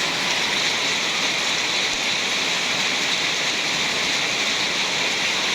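Heavy rain falling, a steady even hiss of pouring water.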